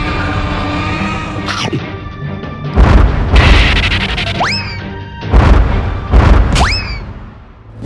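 Cartoon fight sound effects over background music: three heavy booming impacts, the first about three seconds in and two more close together near the end, with two quick rising whistles between and after them.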